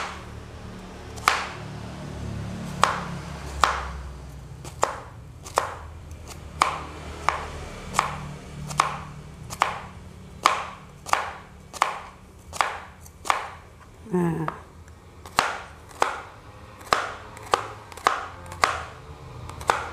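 Kitchen knife slicing bitter melon on a cutting board: a steady run of sharp knocks as the blade cuts through and strikes the board, about one a second at first, then quicker in the second half.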